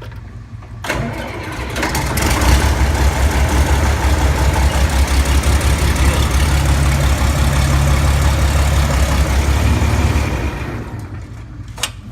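John Deere 4230 tractor's six-cylinder diesel engine being started: it cranks about a second in, catches and runs loudly and steadily, then falls away about ten seconds in.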